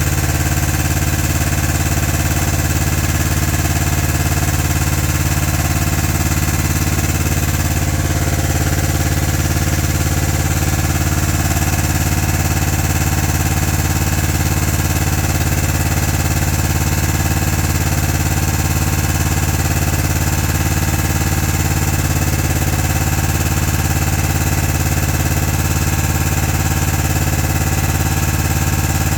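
Briggs & Stratton 20 hp Intek V-twin engine on a zero-turn mower running steadily on its first test run after a failed oil pan gasket was replaced.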